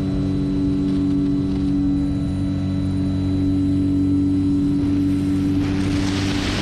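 The motor and propeller of a radio-controlled scale T-6 Texan, heard from a camera on board, drone steadily in flight. About five and a half seconds in, rushing wind over the airframe swells up loudly as the model banks and picks up speed.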